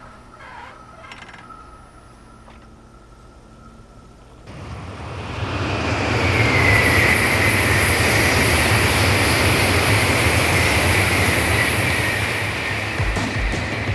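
JR Tokaido Line train passing through a level crossing: wheel and rail noise builds from about four seconds in to a loud steady rush, with a high whine over it, easing a little near the end.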